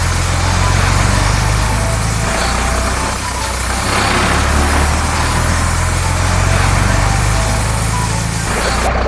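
Cartoon sound effect of a heavy vehicle's engine running steadily, a low hum that swells and eases every few seconds, with short high notes over it.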